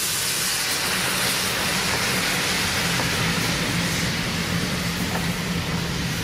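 GWR 14xx 0-4-2 tank engine No. 1450 moving off slowly, steam hissing from its open cylinder drain cocks, loudest in the first couple of seconds, over a steady low hum.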